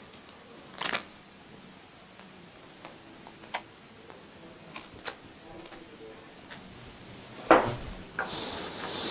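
Light clicks and taps of small metal pump parts being handled and fitted during diaphragm reassembly, with a louder knock about seven and a half seconds in followed by a brief rustle.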